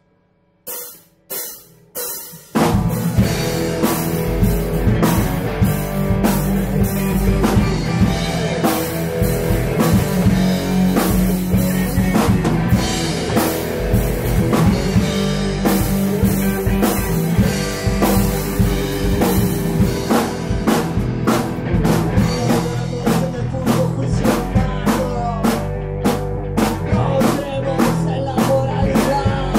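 Three short separate hits, then a punk rock band comes in with drum kit, bass and electric guitar and plays on steadily at full volume, in a rough rehearsal-room recording.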